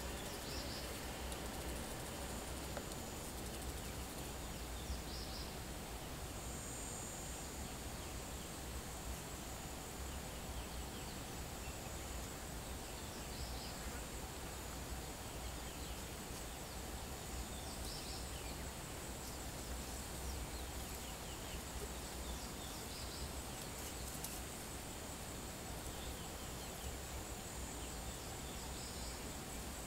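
Outdoor bush ambience: a steady high insect drone, with a short high call repeating every few seconds over a low steady rumble.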